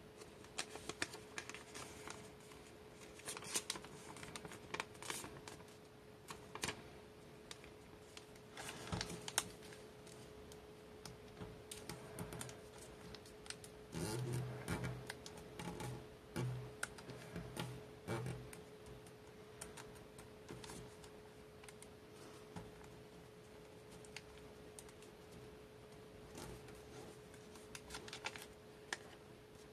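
Origami paper being handled and folded by hand: irregular crisp crackles and rustles as the sheet is bent and creased, with a denser run of rubbing and pressing against the tabletop as folds are flattened about halfway through.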